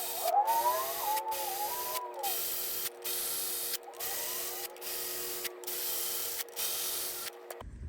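Cordless electric ratchet spinning down new cylinder head bolts, in a string of short runs with brief breaks between them, cutting off suddenly near the end.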